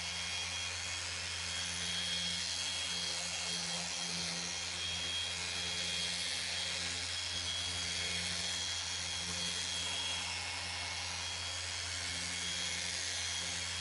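Cordless mini polisher running steadily with a small pad on a carbon-fibre mirror cap: an even motor whir with a thin high whine held at one pitch throughout.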